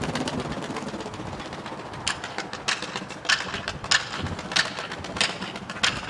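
A pigeon's wings flapping fast as the bird is tossed up and takes off, a quick flutter in the first second, followed by a run of sharp clicks roughly every two-thirds of a second.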